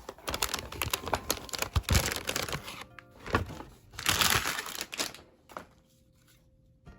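A dense run of clicks, taps and crinkling from hands handling PC parts and their plastic packaging, over quiet background music; the handling stops about five and a half seconds in.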